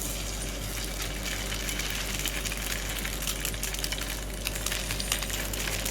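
Hot oil sizzling and crackling in a frying pan, a steady hiss that starts suddenly and grows busier with fine crackles, over a steady low electrical hum.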